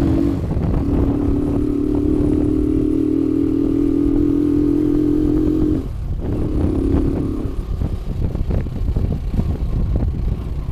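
Motorcycle engine running steadily while riding, over a low rumble. Near six seconds in the engine note drops away, returns for a moment, then gives way to rumbling with scattered rattles and knocks.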